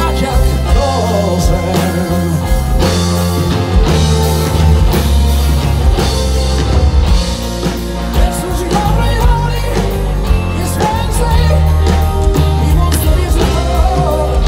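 Live rock band playing through a PA: electric guitars, keyboard and drum kit over a heavy bass, with a male lead vocal in places.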